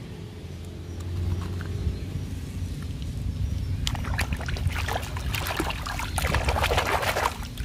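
Water splashing and sloshing as a hand scrubs a small plastic toy car in a tub of muddy water, starting about four seconds in, over a steady low rumble.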